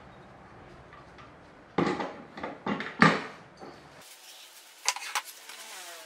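Office chair's metal butterfly tilt mechanism clattering against a wooden tabletop as it is handled and set down: four or five sharp knocks from about two to three seconds in. Later come a couple of softer clicks and rustles of the plastic-wrapped seat being handled.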